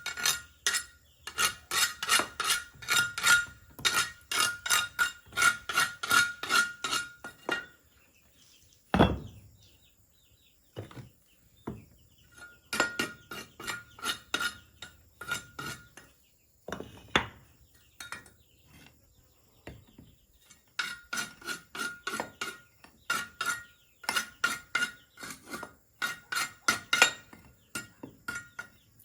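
Rapid, repeated blows of a hand tool during bamboo work, about four a second, each with a clinking ring at the same pitch. The blows come in runs of several seconds, broken by pauses and a few single heavier strikes.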